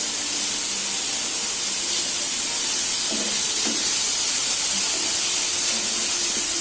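Marinated tuna slices sizzling steadily in a little oil in a pan over a low flame, the second side frying in oil the fish itself has released.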